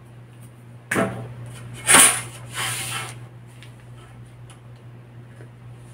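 A long metal ruler handled on a paper pattern: a clack about a second in, a louder clack at two seconds followed by a brief scraping hiss as it slides on the paper, then faint taps.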